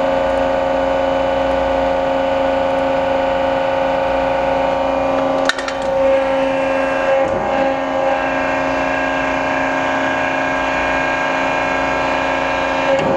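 Cincinnati 175-ton hydraulic press brake's 25 hp main drive motor and hydraulic pump running with a steady whine. A sharp click comes about five and a half seconds in, and the tone wavers over the next couple of seconds as the ram is cycled from the foot pedal.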